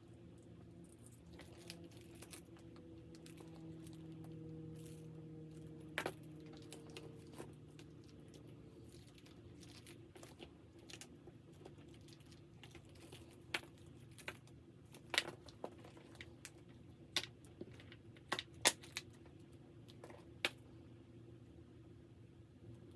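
Scattered sharp clicks and taps of small hard craft pieces being handled, with a louder cluster in the second half, over a faint steady hum.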